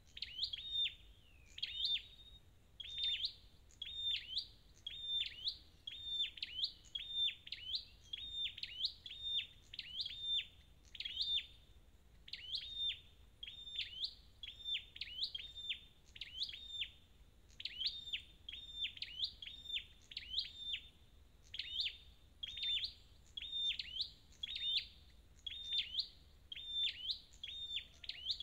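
Flowerpecker (chim sâu đầu đỏ) calling: short, sharp, high-pitched chip notes repeated about twice a second, with a few brief pauses.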